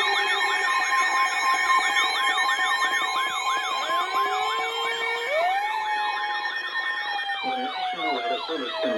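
Several electronic emergency sirens warbling quickly and overlapping, with steady tones underneath until about seven seconds in. About four seconds in another siren rises in pitch, and near the end a lower fast warble joins.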